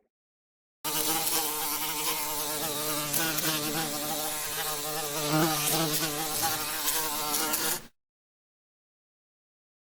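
An insect buzzing, its pitch wavering slightly. It starts about a second in and cuts off abruptly near the end.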